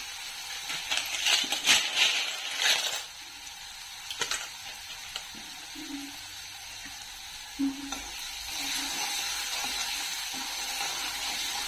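A metal ladle stirring and scraping in a metal kadai, with sharp clinks over the first three seconds and one more about four seconds in, then the thin curry in the pan sizzling steadily on the gas flame, the sizzle growing louder in the last few seconds.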